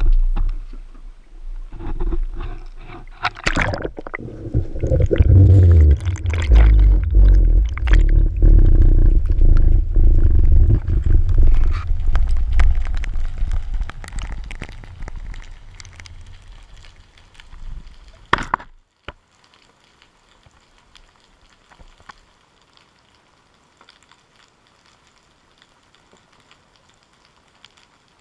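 Camera housing plunging into the sea and sinking, heard through a GoPro Hero 3's waterproof case: heavy low rumbling and gurgling of water rushing past. It fades out about two-thirds of the way through with a sharp knock, leaving only a faint underwater hiss.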